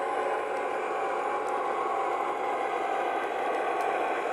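O gauge Lionel U30C model diesel locomotive running on three-rail track, its Proto-Sound 2.0 board playing a steady diesel engine sound over the running gear.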